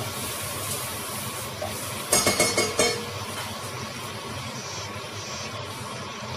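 Chopped onion and garlic sizzling in hot oil in a stainless steel pot, a steady hiss, broken about two seconds in by a short clatter of sharp knocks.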